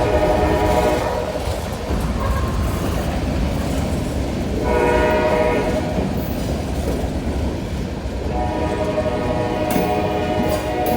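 A freight train rumbling past on its wheels and rails. Its horn sounds three times: a short blast at the start, another about halfway through, and a longer one near the end.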